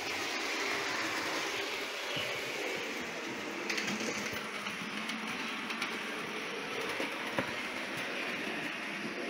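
Model trains running on a model railway layout: a steady whirring rumble of small electric motors and wheels on the track, with a few light clicks.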